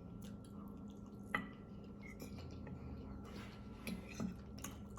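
Quiet eating sounds close to the microphone: soft chewing and mouth noises with a few light clicks, the sharpest about a second and a half in and a cluster near the end.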